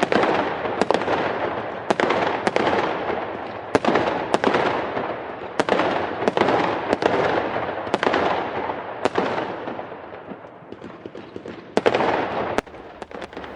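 Fireworks going off: a string of sharp bangs, about one or two a second, over continuous crackling. It thins out about ten seconds in, then a final few bangs come near the end.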